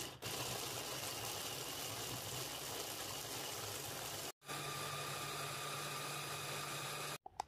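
Electric mini chopper's motor running steadily as its blade grinds blanched almonds into almond meal. The sound breaks off for a moment a little past halfway, then resumes with a clearer, steady hum.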